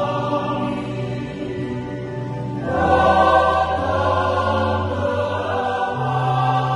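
Church choir singing a slow piece in long held chords, swelling louder about three seconds in.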